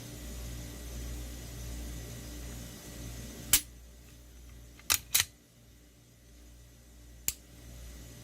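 Sharp clicks from a Glock 19 pistol being handled: one a little before the middle, a quick pair just after, and one more near the end. A low steady hum runs under the first part and drops away after the first click.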